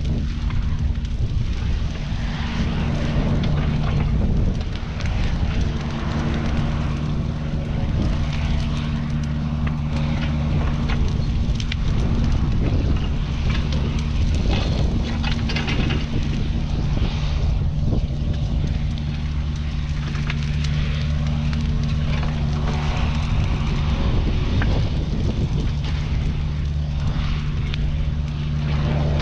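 Mini excavator's diesel engine running steadily, with irregular clattering over it.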